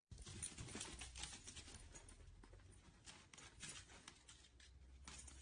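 Faint, scattered clicks and scratches of a corgi puppy's claws and body scrabbling against a wicker basket as it climbs over the rim.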